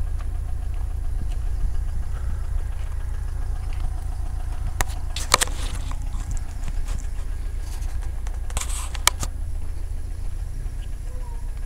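Car driving along a road: a steady low engine and road rumble, with a few sharp clicks about five seconds in and again about nine seconds in.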